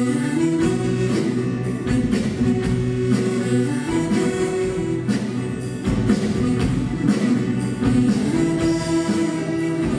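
Live Cajun band music: accordion and fiddle carrying the tune over electric bass and strummed acoustic guitar, with a steady beat.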